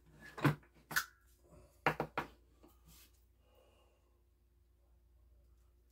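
Shotshell reloading press being worked by hand: a handful of sharp metallic clicks and clunks from the handle and its moving parts in the first couple of seconds, then softer handling noise.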